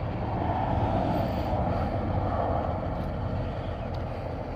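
Low, steady vehicle engine rumble. It swells briefly about a second in and eases again by the middle.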